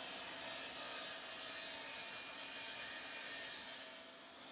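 A steady hissing rush of noise that fades out near the end.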